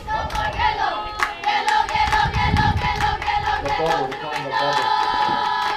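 A group of voices chanting a sung softball cheer together, with clapping, ending on a long held note.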